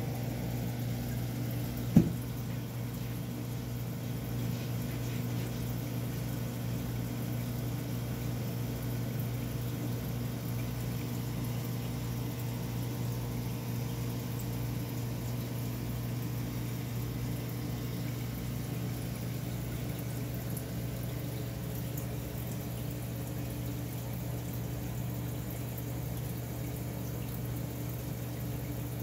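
Steady hum and water noise of aquarium equipment running, pumps and filtration, with a low regular pulsing throb underneath. A single sharp knock about two seconds in.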